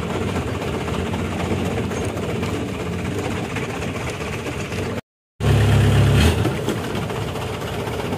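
Small boat's engine running steadily on the canal. About five seconds in, the sound cuts out completely for a moment, then a louder low rumble follows for about a second before it settles back to the steady running.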